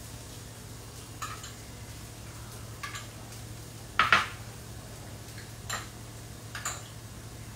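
A few scattered clinks and knocks of kitchen utensils and dishes, about five in all, the loudest about four seconds in, over a steady low hum.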